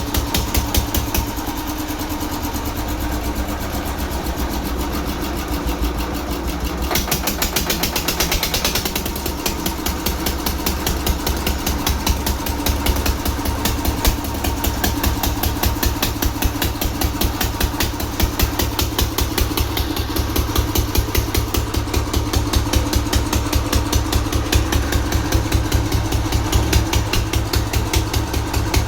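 Old diesel engine running with a fast, even knocking beat. A brief hiss joins it about seven seconds in.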